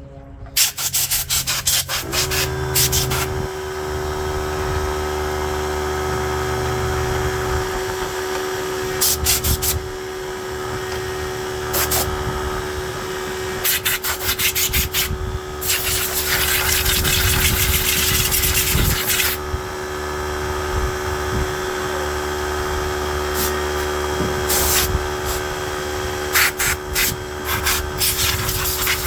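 Air compressor motor kicks on about two seconds in and runs steadily, while an air blow gun hisses in repeated short blasts, one long blast near the middle, blowing dirt out of a lawn mower's rear wheel gear housing.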